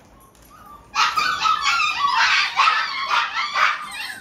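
Several puppies yelping and whining together, a chorus of overlapping high cries that starts suddenly about a second in.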